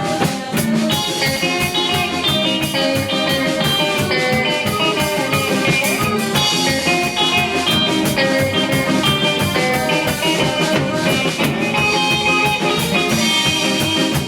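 A rock band playing an instrumental passage with no singing: electric guitar lines over a drum kit.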